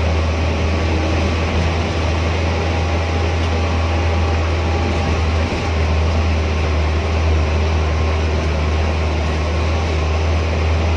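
Steady low drone of engine and road noise inside a moving vehicle's cabin.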